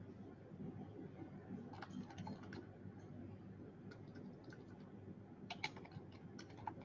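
Faint computer keyboard typing in two short runs of clicks, over a low steady room hum.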